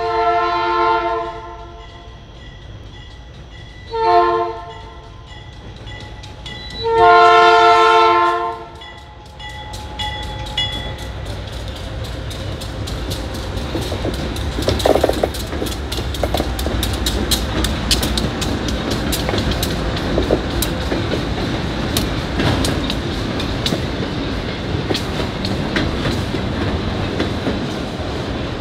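Freight diesel locomotive horn sounding three blasts, long, short, long, as a grade-crossing warning. The train then passes: the locomotive engine and a long string of freight cars rolling by with a steady rumble and rapid clicking of wheels over rail joints.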